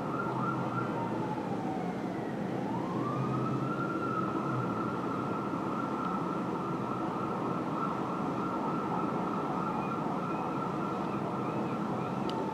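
Fire apparatus siren on a wail: the pitch falls, climbs back up about three seconds in, holds high and steady for a long stretch, then starts falling again near the end. A second siren warbles faintly late on, over steady city traffic noise.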